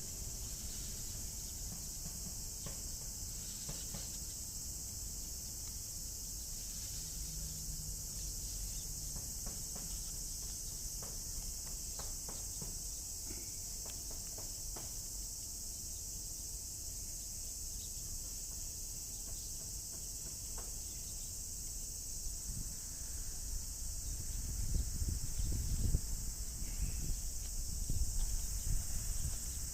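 A steady, high-pitched drone of summer insects runs throughout. Underneath is a low rumble that grows louder in the last several seconds.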